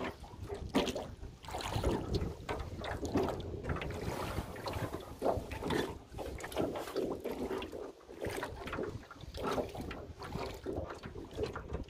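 Small aluminium rowboat being rowed: splashes of oars and water against the hull, with wind buffeting the microphone.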